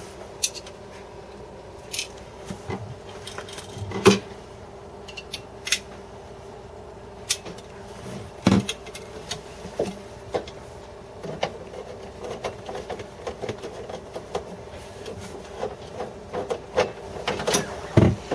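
Scattered clicks, taps and knocks of plastic refrigerator drawer parts being handled and fitted together, with a few louder knocks about four, eight and eighteen seconds in, over a steady low hum.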